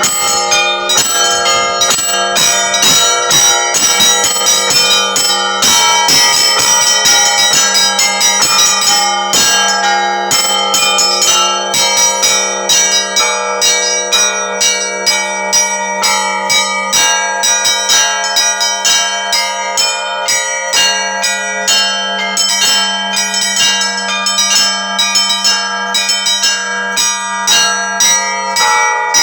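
Russian Orthodox church bells ringing continuously: small bells are struck in a quick, dense pattern over a steady low hum from a larger bell.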